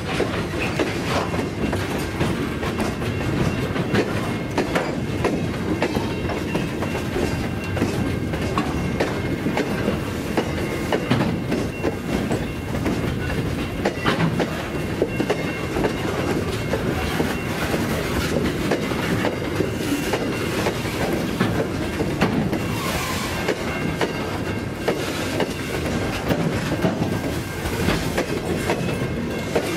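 Loaded grain hopper wagons rolling past on the rails: a steady rumble with the repeated clicking of wheels over rail joints.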